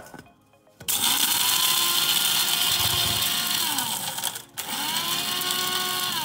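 Old electric blade coffee grinder grinding whole dried spices and peppercorns in two pulses. After a click, the motor whirs up about a second in, runs for about three seconds, cuts out briefly with its pitch dropping, then spins up again and starts winding down at the end.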